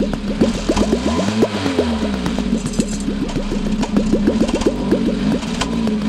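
Car exhaust with an aluminium drink can fitted over the tailpipe, the engine running: the can turns the exhaust note into a comical rattling buzz, a rapid flutter of about nine strokes a second over a low hum whose pitch wavers up and down.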